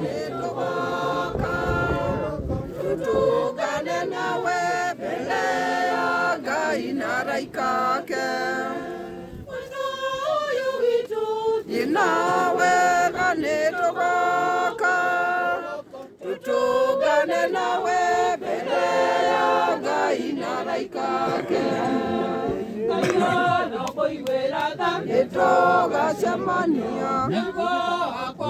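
A crowd of mourners singing together without instruments, many voices at once, with a short break about halfway through.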